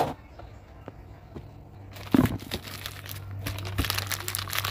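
A knock right at the start, then from about two seconds in a dense crinkling and rustling of something thin and crinkly being handled, over a steady low hum.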